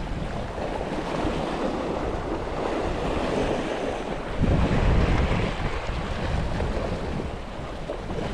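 Small sea waves washing and breaking against a rocky shore, with wind buffeting the microphone. The sound swells louder for about a second halfway through.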